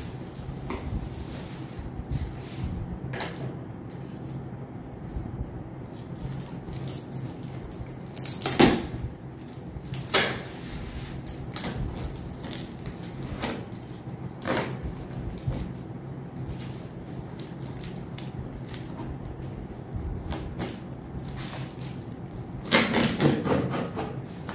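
A taped cardboard box being handled and its packing tape slit with a box cutter: scattered scrapes, taps and rustles of cardboard, with two sharp louder knocks partway through and a busier stretch of loud handling near the end.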